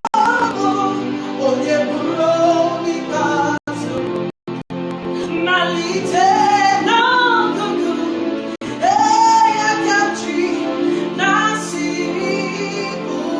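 Gospel worship song: a woman singing long, sliding held notes over steady sustained instrumental backing, with a few very brief dropouts in the sound about four seconds in.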